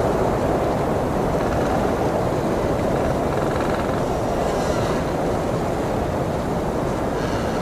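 Blizzard wind blowing steadily: a dense, unbroken rushing noise, heaviest in the low range, with no gusts standing out.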